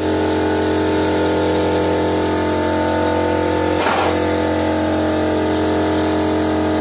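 Small air compressor running steadily, a motor drone with a low hum. A short hiss of air comes about four seconds in, a brief squeeze of the air sandblasting gun.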